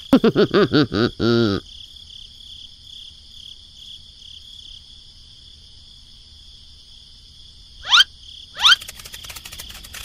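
Squeaky, high-pitched cartoon-style chatter of little characters for about a second and a half, then a steady high-pitched insect-like drone, broken near the end by two quick rising whistles.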